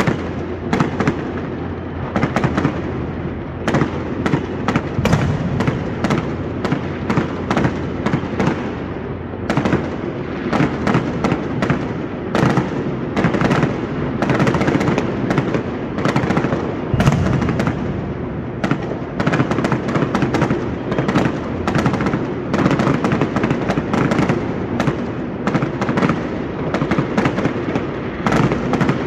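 A dense, continuous barrage of fireworks: many sharp cracks and bangs every second over a steady rolling rumble, with no let-up.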